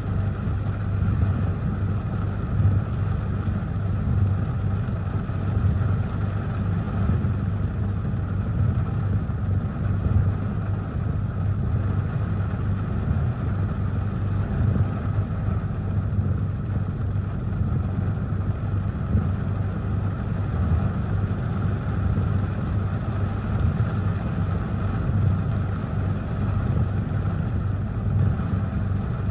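Steady low rumble heard inside a parked car's cabin during heavy rain, from the idling engine mixed with rain on the car.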